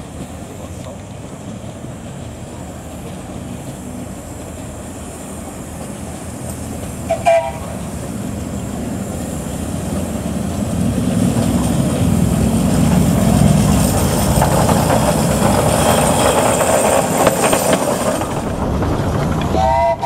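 Small steam train approaching, its running noise of wheels on rail growing louder as it nears. The locomotive's whistle gives a short toot about seven seconds in and another at the very end.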